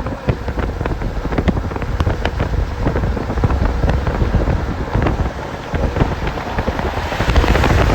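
Strong wind buffeting the microphone over the rumble of a moving vehicle, with frequent sharp taps and clicks, growing louder about seven seconds in.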